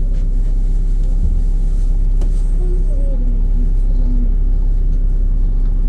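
Steady low drone of a LiAZ 5292.67 city bus heard from inside the passenger cabin: its YaMZ-53624 compressed-natural-gas engine running, with an even rumble underneath.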